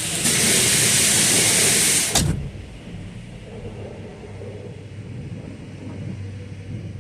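High-pressure water spray hissing loudly against the truck for about two seconds, then cutting off abruptly. Behind it, the truck's diesel engine idles with a low, steady hum.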